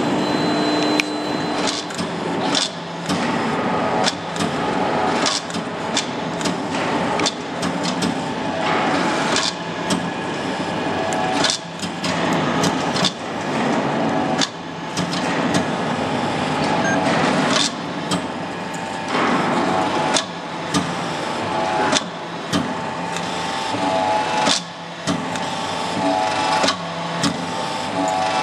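Anyang 25-ton blacksmith hydraulic press working hot steel: its hydraulic unit runs with a steady hum whose tones come and go, over frequent sharp clicks and knocks at irregular intervals.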